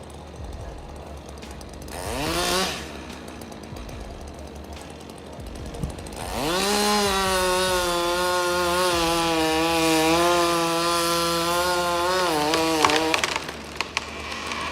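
Chainsaw engine revved briefly about two seconds in, then opened up to full throttle and held there for about seven seconds, dipping slightly before it drops off near the end.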